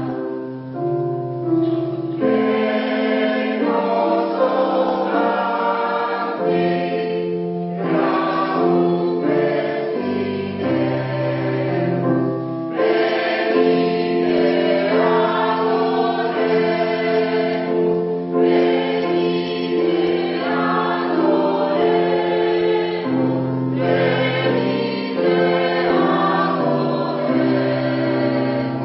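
Choir singing a piece in several voice parts, holding full chords over a low bass line in phrases with short breaks between them.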